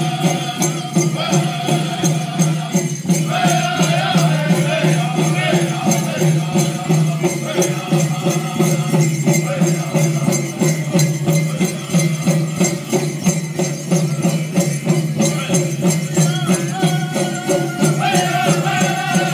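Powwow drum group playing: a group of singers chanting in phrases over a steady beat on a large drum, with the rattle of bells and jingles on the dancers' regalia.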